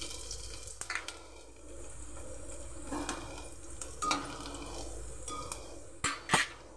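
Chopped garlic and ginger sizzling in hot oil in a steel kadhai, with a utensil knocking and scraping against the pan several times; the loudest knocks come near the end.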